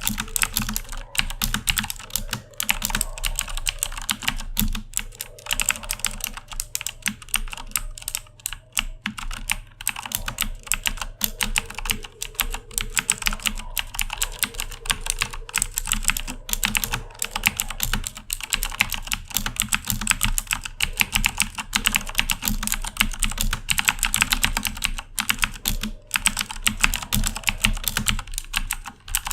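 Fast, continuous typing on a Corsair K70 mechanical keyboard with Cherry MX Blue switches: a dense stream of clicky keystrokes with only brief gaps.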